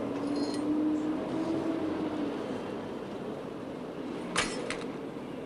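Steady city street traffic noise, with one sharp clatter of something hard hitting the pavement near the end.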